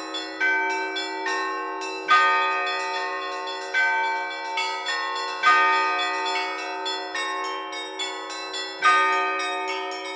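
Russian bell ringing (zvon): a bell ringer striking a set of bells, a louder stroke about every three and a half seconds with quicker, lighter strokes in between, the tones ringing on over one another.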